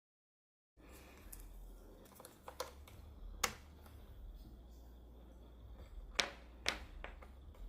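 Scattered sharp clicks and taps of a small 3D-printed plastic part being handled and fitted, a few loud ones about two and a half and three and a half seconds in and again near the end, over a low steady hum. It opens on a moment of dead silence.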